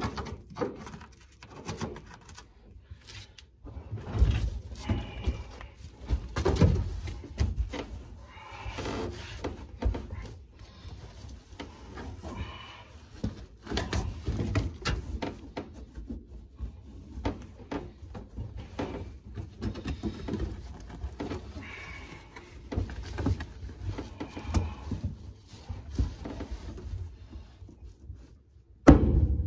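Car carpet being handled, shifted and pressed into place inside a car body: irregular rustling and scraping with scattered knocks and clicks, and one loud thump near the end.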